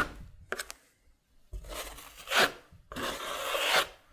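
Metal trowel scraping drywall mud across the face of drywall in two long strokes, skim-coating it, with a short click just before.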